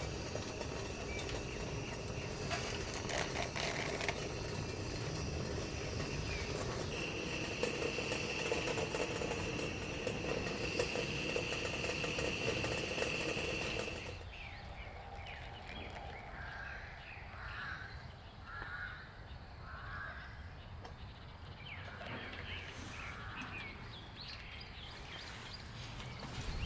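Steady rain noise with a steady high whine over it. About halfway through it cuts to a quieter outdoor background, where a bird calls four times in quick succession, followed by a few fainter chirps.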